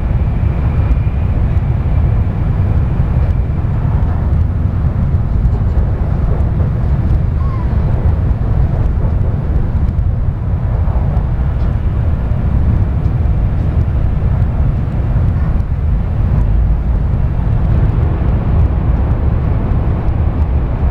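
Cabin running noise of an N700-series Shinkansen train at speed: a steady low rumble.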